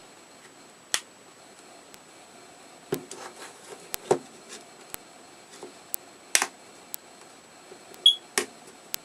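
Irregular clicks and small snaps of hands working on a Nook Simple Touch e-reader's plastic case, the loudest about three, four, six and eight seconds in, over a faint tick about once a second.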